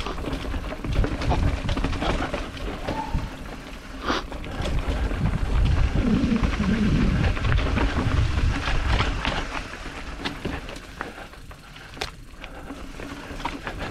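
Heavy wind rumble with scattered knocks and rattles, the sound of moving fast down a rough trail.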